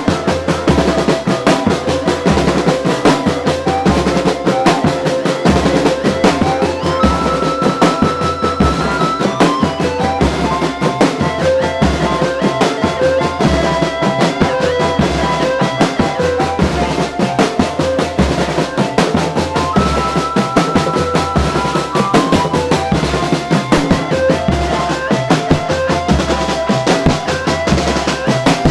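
Marching drum band playing bass drums and snare drums beaten with mallets and sticks in a fast, continuous rhythm. A stepped tune runs over the drumming.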